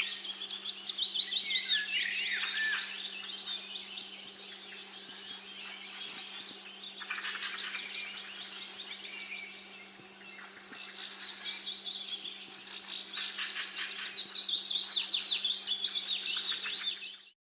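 Several small birds chirping and trilling in quick, high, overlapping phrases, thinning out briefly midway, over a steady low hum. The sound cuts off abruptly near the end.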